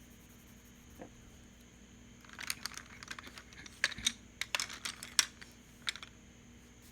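Colored pencils being handled and worked on a sketchbook page: a run of quick, sharp clicks and scratches from about two seconds in until about six seconds in.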